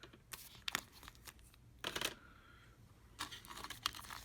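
Parts of an opened MacBook Pro being handled as the logic board is lifted out: irregular light clicks and scrapes, with a longer scrape about two seconds in and a quick cluster of clicks past three seconds.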